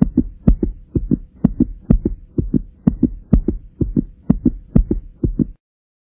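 Heartbeat sound effect: a steady, fast lub-dub of low thumps at about two beats a second over a faint steady hum, stopping about five and a half seconds in.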